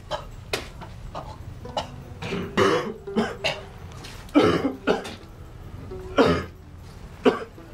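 A person coughing repeatedly, short harsh coughs with throat clearing, a cluster of them about halfway through.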